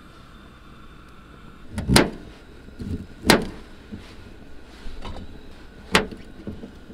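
A kitchen knife knocking against a stainless-steel surface as it cuts broccoli, with a few smaller taps between. The loudest knocks come about two seconds in, again a little over a second later, and near the end.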